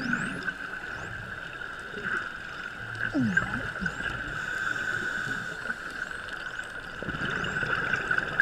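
Bottlenose dolphins whistling underwater: short rising whistles come now and then over a steady hum, with a lower gliding sound a few seconds in.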